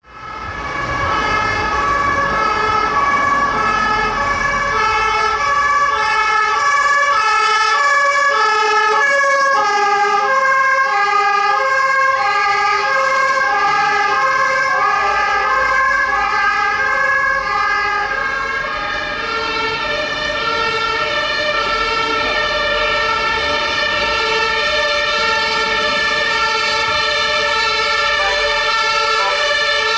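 Several German two-tone emergency vehicle sirens (Martinshorn) of fire engines and an ambulance sounding together, each alternating between a high and a low note about every half second, out of step with one another.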